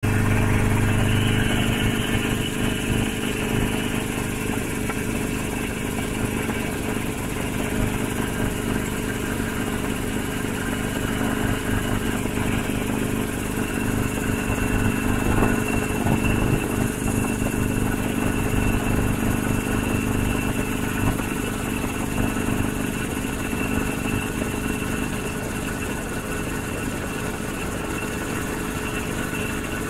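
Quadcopter drone's motors and propellers whirring in a steady, continuous hum, with a higher whine joining about halfway through.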